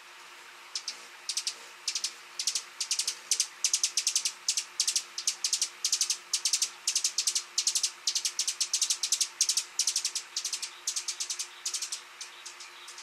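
Hummingbird giving a rapid series of sharp, high-pitched chip notes, several a second in small clusters, starting about a second in.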